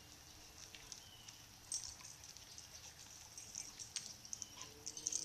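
Faint scattered light clicks and rustles from a Labrador puppy on a leash moving about and being handled on concrete, more frequent in the second half. A faint low hum comes in near the end.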